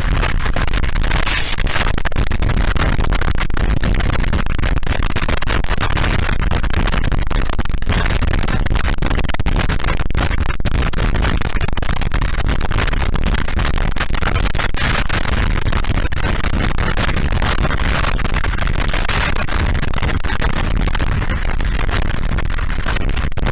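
Loud, steady rush of wind and road noise from a motorcycle at highway speed on a wet road, with the wind buffeting and crackling on the microphone throughout.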